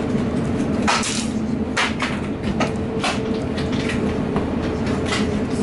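Airbus A350 cabin noise as the airliner rolls on the runway: a steady low rumble and hum, with half a dozen irregular sharp knocks and rattles.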